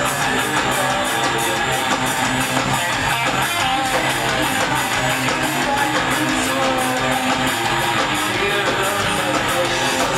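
Live rock band playing loud: electric guitars and bass over drums, with a steady beat in the cymbals.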